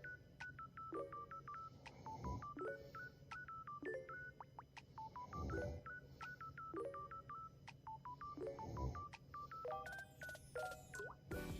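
A sleeping girl snoring softly, one low breath roughly every three seconds, under a quick melody of electronic beeps that plays throughout.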